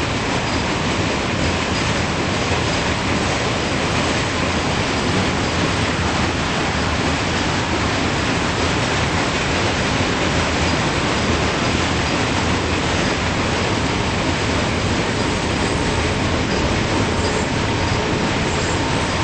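A long mixed freight train's cars rolling past: a steady, loud rumble and rattle of steel wheels on rail, with a faint thin wheel squeal in the second half.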